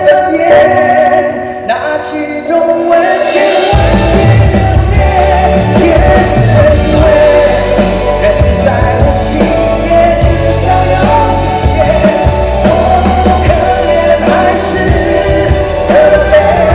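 Live pop-rock song with a male singer holding long sung notes over backing music. Bass and drums come in about four seconds in and carry on under the voice.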